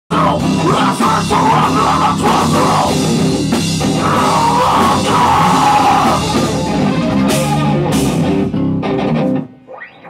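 Rock band playing live and loud, with electric guitar and a drum kit, stopping abruptly about nine and a half seconds in.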